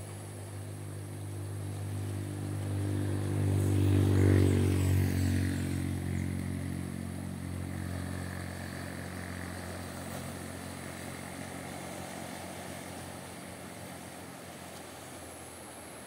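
A motor engine passing by, unseen. Its steady note grows louder, peaks about four seconds in, then slowly fades away.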